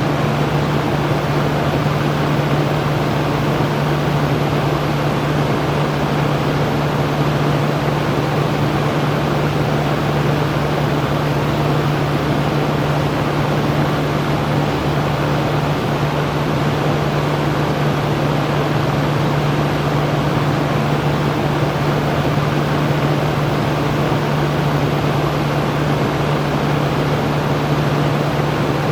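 Electric fan running steadily: an even rushing of air with a constant low hum from the motor.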